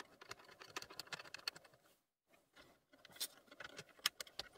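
Faint small clicks and scrapes of brass screws being started by hand into the mounting points of a plastic instrument cluster, with a few sharper clicks near the end.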